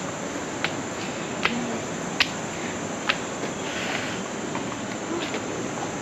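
Insects trilling steadily in a high, even band over a steady hiss, with half a dozen sharp clicks at uneven intervals, the loudest about two seconds in.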